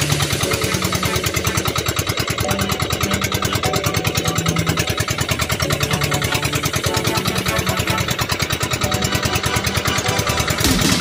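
A boat's engine running steadily, with a rapid, even pulsing beat.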